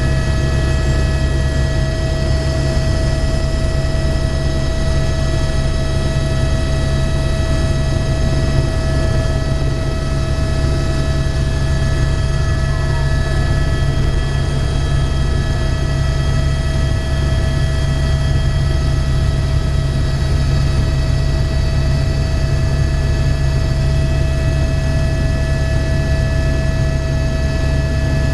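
Helicopter engine and rotor noise heard from inside the cabin as the helicopter takes off and climbs: a loud, steady deep drone with a steady whine of several high tones above it.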